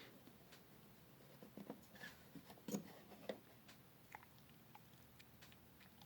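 Near silence, with a few faint, short clicks and taps scattered through it, most in the first half.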